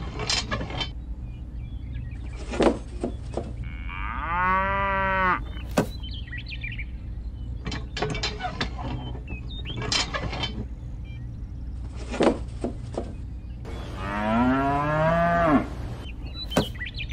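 A cow moos twice, once about four seconds in and again near the end, each call about a second and a half long. Between the calls come light clicks and taps as small model barn pieces are handled and set down.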